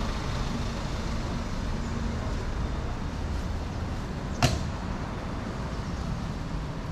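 Steady low rumble of city road traffic, with one sharp knock about four and a half seconds in.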